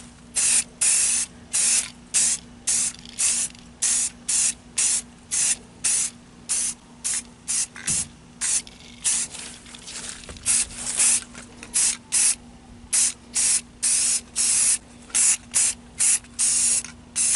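Aerosol spray can of Rust-Oleum gloss black enamel being sprayed in quick short bursts, about two hisses a second with a few longer passes, laying a light coat of paint.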